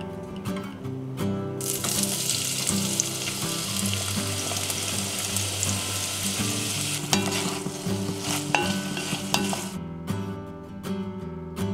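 Diced potatoes, onions and celery sizzling in hot olive oil in a pot, starting about a second and a half in, with a few sharp clicks in the middle, and cutting off shortly before the end. Acoustic guitar music plays underneath.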